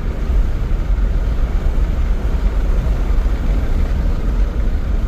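Cabin sound of a 2002 Acura TL Type-S under way, its V6 engine and road noise making a steady low rumble.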